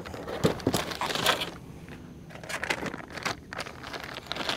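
Plastic packages of soft-plastic fishing lures crinkling and rustling as they are grabbed and lifted out of a storage tub by hand, in several bursts.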